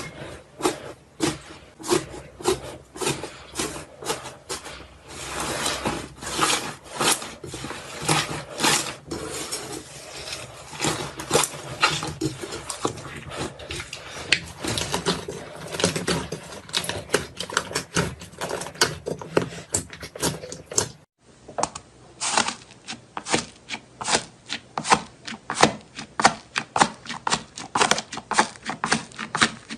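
Crunchy slime being squeezed and pressed by hand, giving rapid crackling and popping clicks, several a second, with a brief break about two-thirds of the way through.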